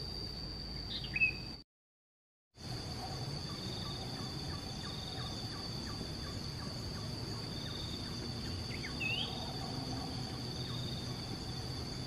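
Steady high-pitched insect chorus, crickets or cicadas, with a pulsing trill under it, and two short bird chirps, one about a second in and one near nine seconds. The sound cuts out completely for about a second near the two-second mark.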